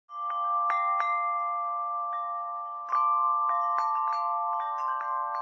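Intro music of ringing chimes: struck tones that ring on and overlap into a shimmering chord, with a louder strike about three seconds in.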